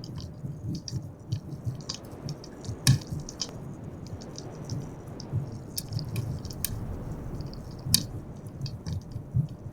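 Wood fire crackling in a fireplace: irregular sharp pops and snaps, the loudest about three seconds in and again near eight seconds, over a low steady rumble.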